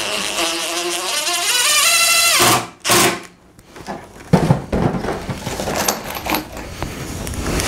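Cordless drill driving a screw into a wooden hive box, its motor pitch rising until it stops suddenly about two and a half seconds in. Then comes a short burst of noise, followed by knocks and scraping as the box is turned over on the bench.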